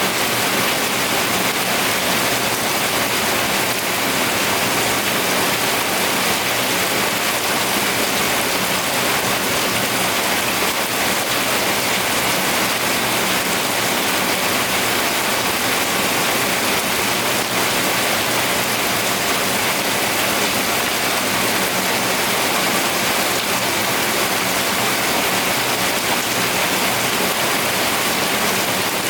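Steady rainfall, an even and unbroken hiss.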